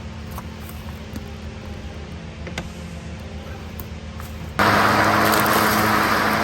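A low steady hum, then about four and a half seconds in a much louder steady rushing sound with a low motor tone cuts in abruptly: a Stihl battery-powered lawn mower running.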